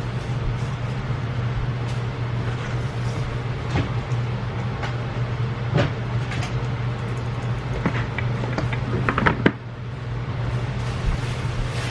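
Grocery packages being handled and set down, giving scattered clicks, knocks and rustles, with a short cluster of knocks about nine seconds in, over a steady low hum.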